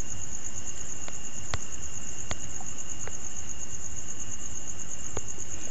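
A steady high-pitched tone or trill over a low background hiss, with a few faint clicks.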